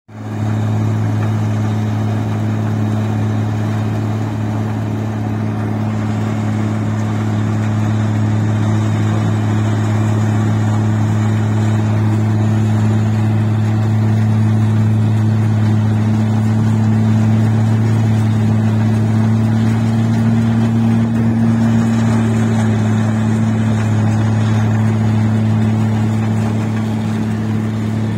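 Combine harvester's engine running at a steady speed, a constant low drone, with the rattle of the machine working as it cuts rice.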